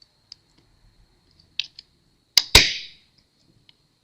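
Hand tools working on a laptop's metal hinge: a few light ticks, then two sharp metallic clicks a fraction of a second apart with a brief ring, as the hinge fastening is loosened.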